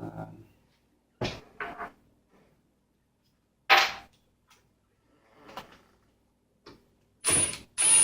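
Sharp clicks and knocks of metal frame parts and tools being handled, then near the end a cordless screwdriver whirring in two short bursts as it backs out a frame screw.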